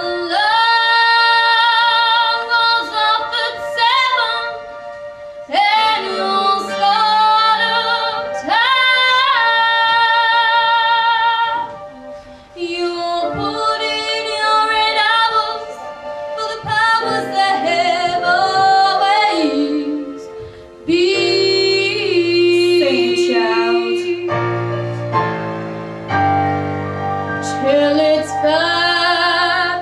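A girl's solo singing voice through a handheld microphone, holding long notes with vibrato in phrases broken by short breaths, over musical accompaniment. Partway through, low held accompaniment chords come in under the voice.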